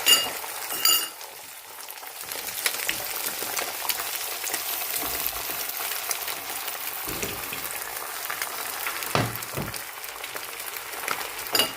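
Food sizzling and crackling in a hot frying pan while being stirred, with two ringing metallic clinks of a utensil against the pan in the first second.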